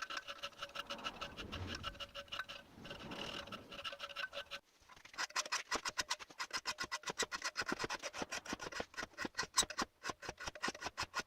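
Hand tools shaping the steel cutting edges of forged pliers: fast, repeated scraping strokes on metal, at first over a steady whine. After a cut about four and a half seconds in, a faster, even run of sharp strokes follows.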